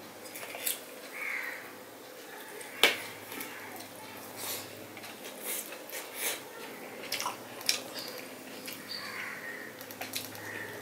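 Hand-eating sounds: fingers mixing rice and fish curry on a steel plate, with scattered sharp clicks of fingers against the metal and chewing. The loudest click comes a little under three seconds in.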